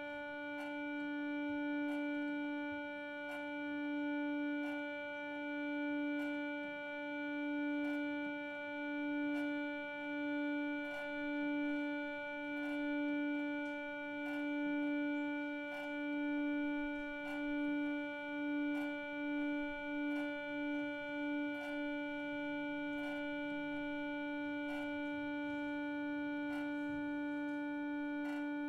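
A single sustained note on a harmonium, its reedy tone swelling and fading in slow waves that grow quicker and shorter, then holding steady for the last several seconds. Faint regular ticks sound under it.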